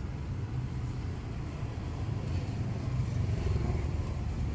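Steady low rumble of street traffic, with no distinct events standing out.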